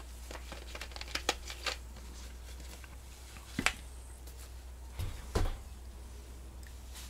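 A plastic bottle being handled: a quick run of small clicks and crinkles as its screw cap is turned back on, a sharp click a couple of seconds later, then two dull knocks against the table about five seconds in.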